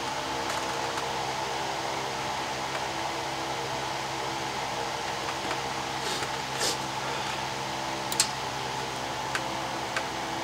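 Steady whir of a fan with a low electrical hum. A few light clicks and taps come as a phone circuit board is handled and set down on a wooden workbench, the sharpest a little past the middle.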